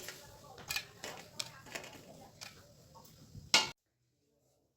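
Light clicks and clinks of kitchenware, five or so spread over about three seconds, then one sharp knock.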